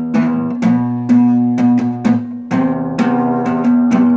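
Acoustic guitar strummed in a rhythmic chord pattern, sharp strokes with the chords ringing between them.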